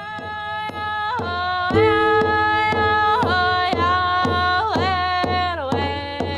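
Music: a single melodic line that slides up into each held note, over a low pulse and a steady beat of about two strokes a second.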